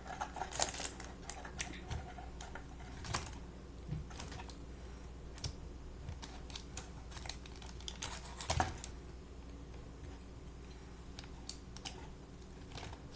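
Irregular light clicks and crackles of crispy fried chicken being picked apart into small pieces, a little busier about two-thirds of the way through.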